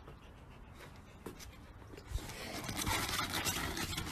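A small dog's claws scraping and scrabbling on a metal ladder as it climbs, starting about two seconds in and growing louder, after a faint click.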